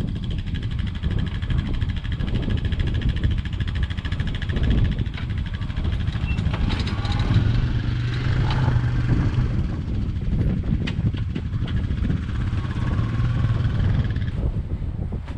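A vehicle's engine running steadily while driving, a continuous low drone with a few short knocks and rattles.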